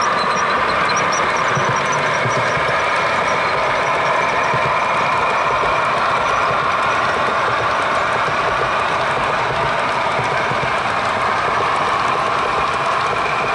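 HO scale model train rolling past close by: a steady rumble and clatter of the freight cars' metal wheels on the rails.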